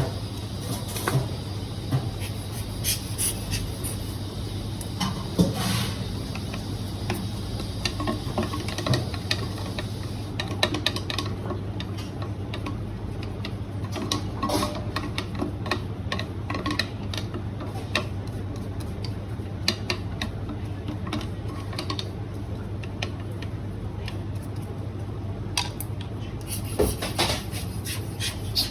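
Small clicks, clinks and rubbing from the parts of a Eureka coffee grinder being handled and cleaned, scattered irregularly with a few louder knocks.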